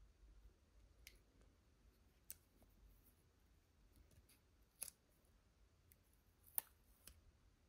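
Faint, sharp clicks and ticks of plastic being handled on an Insta360 Flow gimbal, about five spread out, the loudest about two-thirds of the way through.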